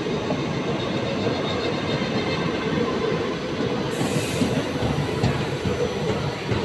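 Indian Railways passenger train running along the track, heard from the open doorway of a coach: a steady rumble of wheels on rail with a faint steady tone, and a brief hiss about four seconds in.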